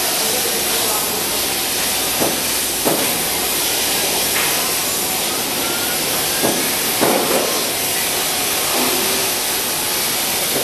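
Steady hiss of workshop machinery noise, with a few short knocks and clicks.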